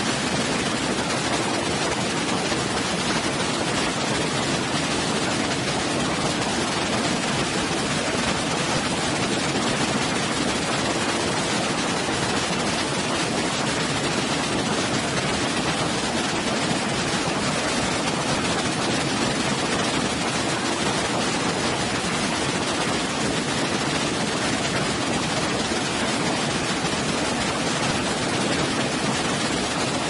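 Waterfall and rock cascades: water falling and spilling over boulders, a steady, even noise without pause.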